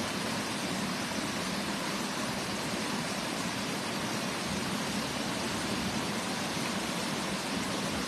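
Water pouring over a small concrete weir into a shallow river: a steady rushing that does not change.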